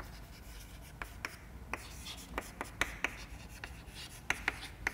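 Chalk writing on a chalkboard: a dozen or so short, sharp chalk ticks and scrapes at uneven intervals as letters are written by hand.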